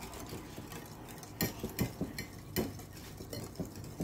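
Wire whisk stirring instant mashed potatoes that are thickening in hot milk in a glass baking dish. The wires scrape through the mix and click irregularly against the glass, most sharply in the middle.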